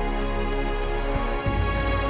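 Instrumental background music with held notes over a low bass; the bass moves to a new note about one and a half seconds in.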